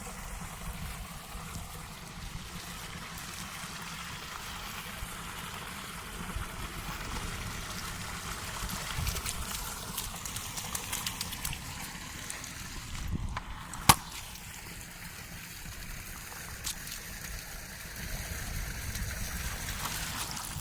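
Water running and trickling, with some sloshing, under steady wind rumble on the microphone. A single sharp click sounds about two-thirds of the way through.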